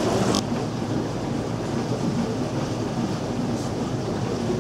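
Steady low rumble and rushing water noise of a steamboat under way, heard from inside its cabin.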